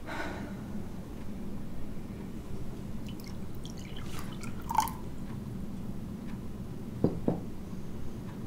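Liquid poured from a cut-glass decanter into a crystal tumbler, with splashing and a short glass clink about five seconds in. Two light knocks follow, a quarter-second apart, near the end.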